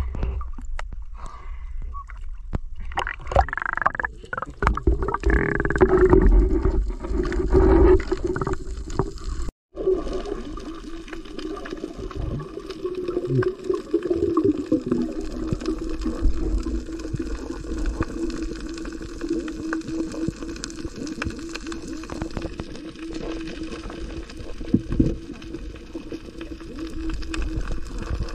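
Muffled underwater sound picked up by a submerged camera: water gurgling and bubbling over a steady low hum, louder for a few seconds near the start, with a brief dropout to silence about ten seconds in.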